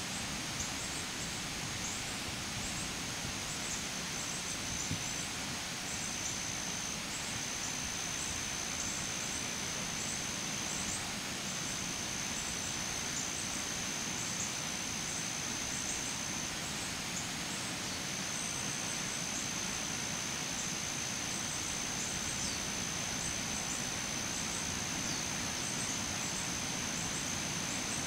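Steady outdoor background hiss with a thin, very high continuous trill over it that breaks off briefly a few times, and faint ticks just above it.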